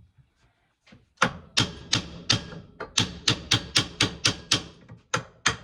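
Hammer tapping on a VW steering column to drive the inner shaft out of its housing: a quick run of about twenty sharp knocks, about five a second, starting about a second in.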